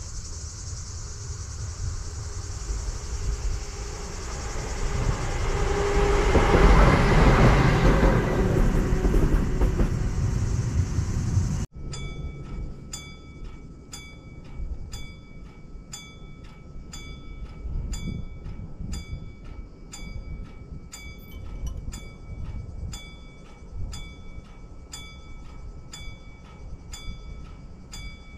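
A train passing close by on the track, growing louder to its loudest about seven seconds in, until it cuts off abruptly. After that a level-crossing warning bell rings steady, evenly spaced dings, a little more than one a second, signalling an approaching train as the crossing barriers come down.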